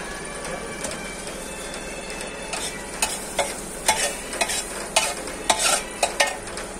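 Food frying on a hot griddle with a steady sizzle; from about two and a half seconds in, a run of sharp metal scrapes and taps as a utensil works the food on the griddle.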